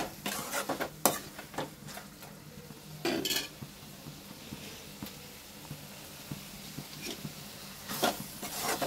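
Spatula stirring and scraping sliced onions and tomatoes in a metal kadai as they sauté, knocking against the pan in quick clicks during the first second and a half, once around three seconds in, and again near the end. Between the stirring, a faint sizzle of the frying vegetables.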